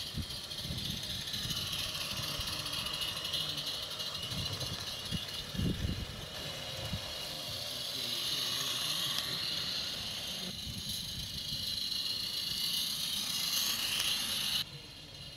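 A 16 mm scale live-steam garden-railway locomotive running, with a steady hiss of steam. Irregular dull low bumps come through, the strongest about six seconds in.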